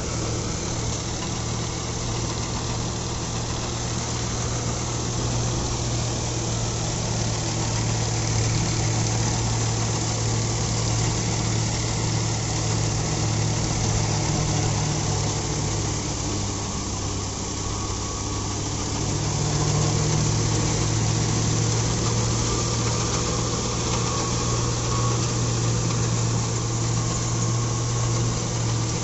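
Sonalika Sikander RX 50 tractor's diesel engine running steadily at a set throttle of about 1600 rpm, driving a Dashmesh 517 straw reaper through the PTO, mixed with the reaper's pickup and cutting mechanism working through straw. The engine note sags a little past halfway, then picks up again.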